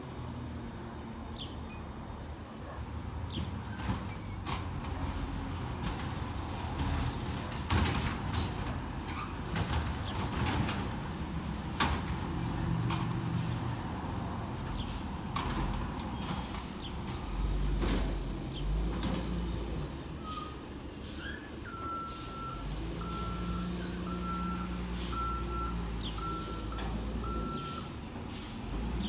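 Crane Carrier LET1 garbage truck's diesel engine running, with scattered clanks and knocks. From about two-thirds of the way in, its reversing alarm beeps about once a second, seven or eight times, as the truck backs up.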